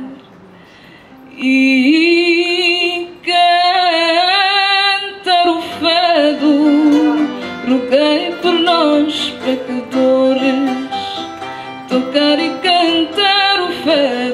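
A woman singing fado, holding long notes with wide vibrato, accompanied by two acoustic guitars. The voice comes in about a second and a half in, after a brief quieter moment.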